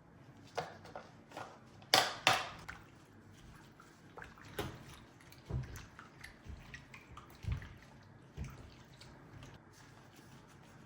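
An irregular series of clicks and knocks, like objects being handled and set down, with two sharp loud knocks close together about two seconds in and a few dull low thumps later.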